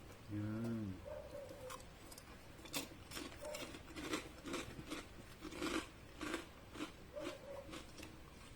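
Crunchy chewing of chicharon, deep-fried pork rind, close to the microphone, with sharp crackling crunches about twice a second. A short voiced 'mm' comes about half a second in.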